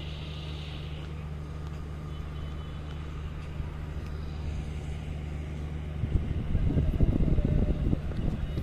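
A stationary train's diesel engine idling with a steady low hum. About six seconds in, a louder, irregular rumble joins it.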